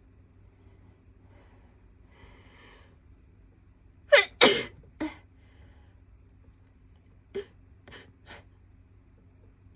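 A person sneezing: a drawn-in breath, then a loud double sneeze with a smaller follow-up, and three short, softer sounds near the end. The sneezing is set off by the nasal swab of a COVID test.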